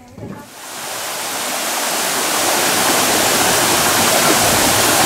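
Waterfall pouring into a rock pool: a steady, loud rushing of falling water that fades in over the first two seconds and then holds even.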